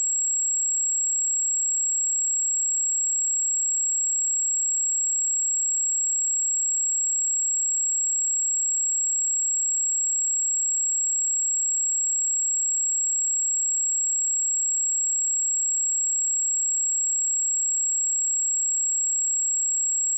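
A steady pure sine tone at 7633 Hz, a single high-pitched whistle held at constant level, used as a speaker or headphone test signal.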